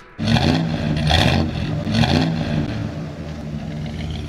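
An engine revved hard three times, about a second apart, then running on more steadily and fading out: a logo sound effect.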